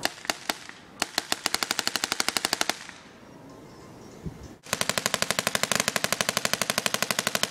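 Mock machine gun on a parade float firing machine-gun shots, about ten a second. A few single shots come at the start, then a burst of under two seconds, a pause, and unbroken rapid fire from a little past the middle.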